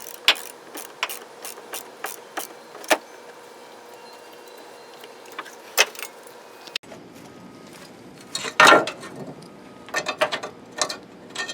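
Wrench and metal battery hardware clicking and clinking in scattered short knocks as the cable terminals are fastened onto a new car battery, with a louder clatter about two-thirds of the way through.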